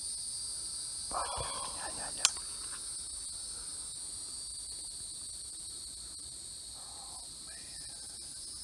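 Steady evening insect chorus, shrill and even in several high-pitched bands. A single sharp click cuts through it about two seconds in.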